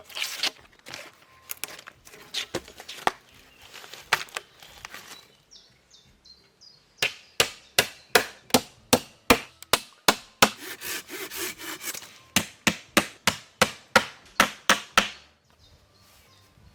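Hand saw cutting through wood. It starts with uneven strokes, pauses for about two seconds, then settles into quick even strokes, about two or three a second, that stop a little before the end.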